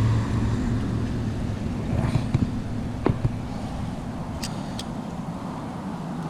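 Steady low rumble of road traffic, easing off slightly, with a few light clicks from handling about two to three seconds in.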